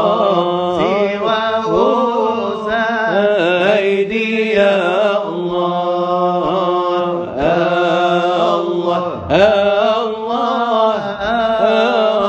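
Unaccompanied male voices chanting a Moroccan Sufi dhikr in sama' style, with no microphone or effects. A lead voice sings long ornamented melismas over a steady low note held beneath it.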